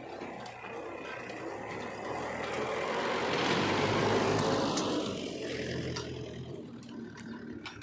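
Heavy diesel machinery engine running, growing louder to a peak about four seconds in and then easing off.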